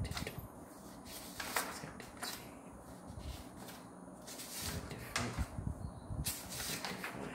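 Sheets of A4 copy paper being slid off the pack and turned over one at a time as a ream is counted by hand, a short swish roughly once a second.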